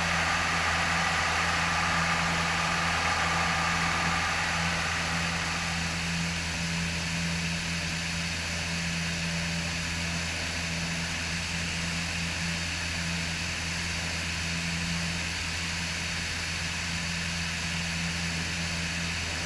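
Piper PA-28 Cherokee Warrior's four-cylinder piston engine and propeller droning steadily at full climb power just after takeoff.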